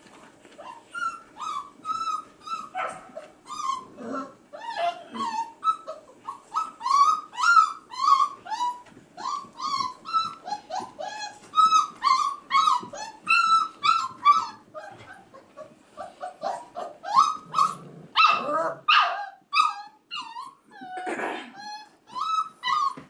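Five-and-a-half-week-old F1b Goldendoodle puppies crying and whining: a steady string of short, high yelping cries, two or three a second, with a few louder cries near the end.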